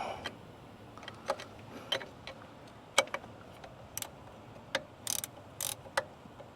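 Ratcheting gear wrench clicking in separate clicks, about one every half second to a second, as a bolt on an engine-mounted air compressor is worked loose.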